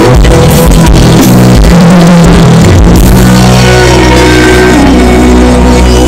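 Live band playing very loud through a stage PA during a soundcheck, picked up close to the speakers on a phone so it distorts. Drum hits through the first half, then held bass notes and long sustained tones from about halfway.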